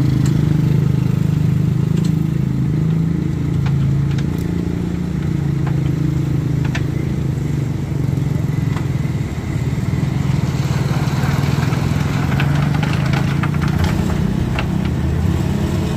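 Heavy vehicle engine running steadily, with scattered knocks and clatter; a rougher hiss builds about ten seconds in.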